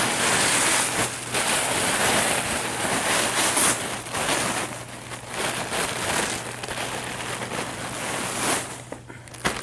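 Crinkling and rustling of plastic packaging as a taped-down package is pulled open. The rustle is dense and hissy, loudest in the first few seconds and easing off after about four seconds.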